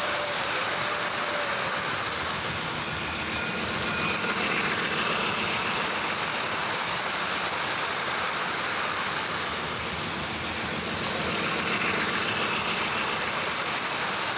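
Lionel model freight cars rolling past at speed on toy train track: a steady rumble and rattle of wheels on the rails, swelling a little twice.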